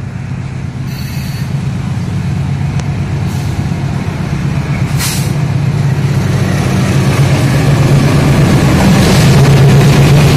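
Diesel locomotive hauling a passenger train drawing near, its engine drone growing steadily louder as it reaches and passes close by. A few brief high hissing bursts come about a second in, around three seconds in and around five seconds in.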